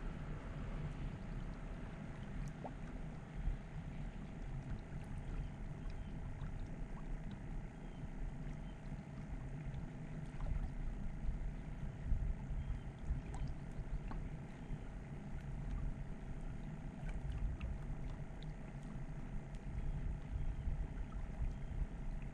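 Small waves lapping against the rocks of a lakeshore, with gusty wind rumbling on the microphone and a few faint ticks.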